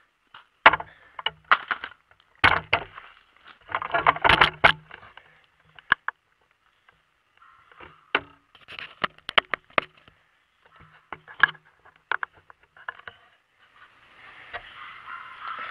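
Irregular sharp clicks, knocks and short scrapes of handling noise as the camera is moved and set down, with an even hiss coming in near the end.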